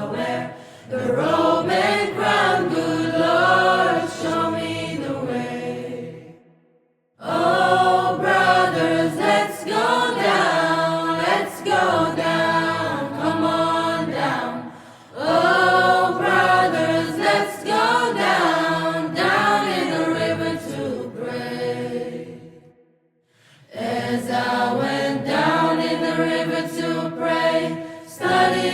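Music with prominent singing in long sung phrases, dropping out to near silence twice, about seven seconds in and again near 23 seconds.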